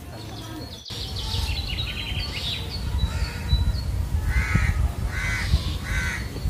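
Crows cawing outdoors, three caws about a second apart near the end, after quicker, higher bird chirps earlier on, over a steady low rumble.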